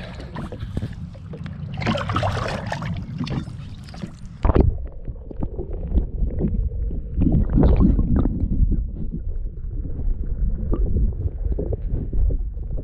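Water splashing and wind at the side of a small boat, then about four and a half seconds in a loud splash and the sound turns dull and muffled: a camera microphone under the lake water, picking up a low rumbling and gurgling.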